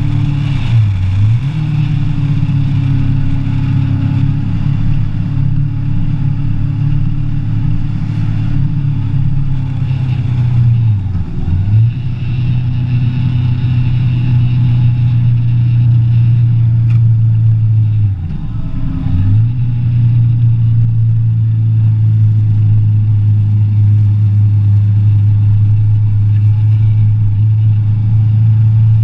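Kawasaki ER-6n's parallel-twin engine running under way, a steady low engine note whose pitch dips sharply and recovers three times, about a second in, around eleven seconds and around eighteen seconds.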